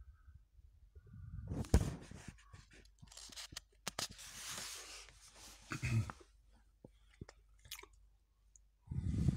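Pages of a paperback comic book turned by hand: paper rustling and a longer sliding swish near the middle. Handling bumps come through as well, the sharpest a knock about two seconds in.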